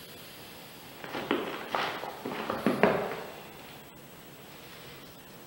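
Sneakers shifting and stepping on a flattened, deflated Nike soccer ball: a quick run of about six scuffs and crinkles of the ball's squashed cover, starting about a second in and lasting a couple of seconds, with a step off onto the wooden floor.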